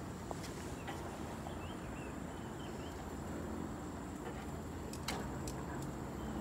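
Quiet outdoor ambience: steady low background noise with faint bird chirps about one and a half seconds in, and a few light metal clicks of grill tongs on the grate around five seconds in.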